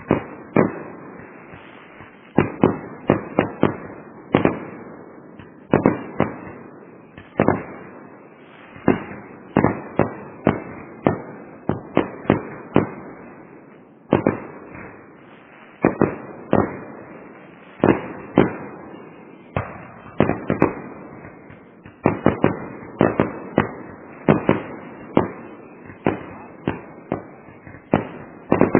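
Fireworks bursting one after another, sharp bangs singly and in quick clusters about every second, each trailing off in echo over a continuous crackle.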